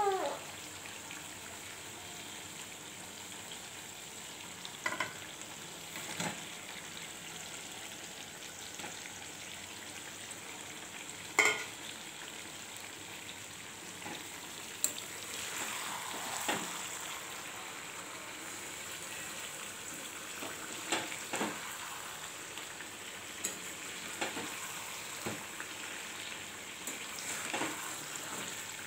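Chicken and potato curry sizzling in hot oil in a metal kadai. A metal spatula stirs it, knocking and scraping against the pan now and then, with the sharpest knock about eleven seconds in.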